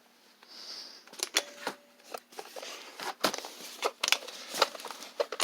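Handling noise: a series of sharp clicks and taps with some rustling, as a hand-held work light is switched on and moved about.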